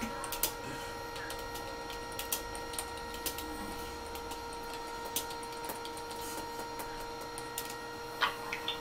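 Scattered light clicks and taps, irregularly spaced, over a steady electrical hum on a phone line.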